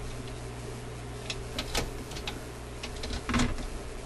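Light mechanical clicks and clacks from a record player's control and speed-change linkage being worked by hand, with a louder clunk about three and a half seconds in, over a steady low hum.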